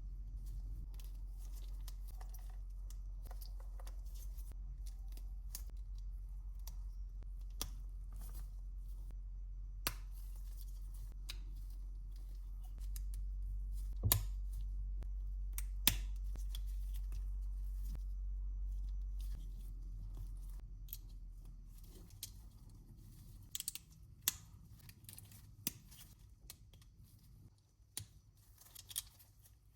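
LEGO plastic bricks being handled and snapped together, with scattered sharp clicks over a low steady hum that fades out about two-thirds of the way through.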